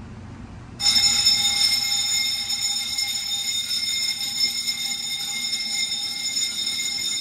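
Wheelock MB-G6-24 fire alarm bell starts ringing about a second in and keeps ringing steadily: the first smoke detector has tripped, putting the FM-200 suppression system into its general alarm stage.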